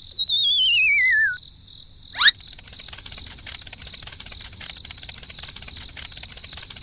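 Cartoon sound effects: a falling whistle that wobbles down in pitch, then a quick rising swish about two seconds in, followed by steady cricket chirping.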